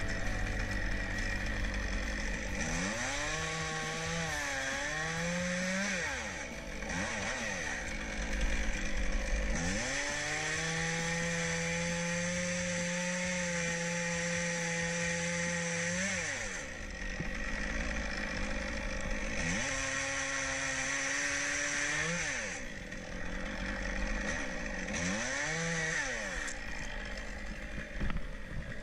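Stihl top-handle chainsaw idling between several bursts of throttle as it cuts through pine, the engine note rising and falling with each cut. The longest cut holds a steady pitch for about six seconds, roughly a third of the way in.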